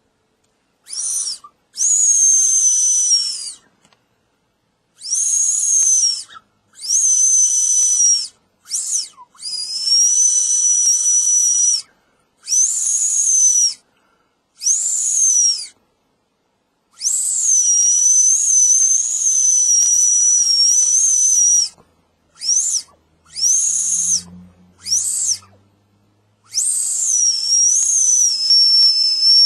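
Whistle candy being blown, giving a high, shrill whistle. It sounds about a dozen times, from short chirps to one blast of about four seconds, and each note swoops in pitch at the start and then wavers.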